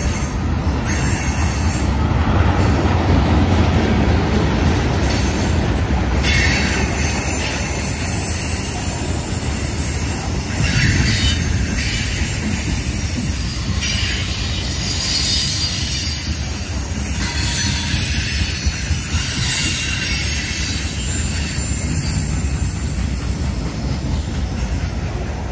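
Freight cars rolling past on a curve: a steady low rumble of steel wheels on rail, with wheel squeal that comes and goes several times from about six seconds in.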